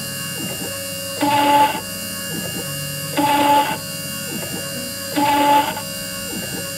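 CNC milling machine cutting a brake caliper: a steady spindle whine, broken about every two seconds by a loud, ringing screech lasting about half a second as the cutter bites into the metal on each pass. Three such cuts.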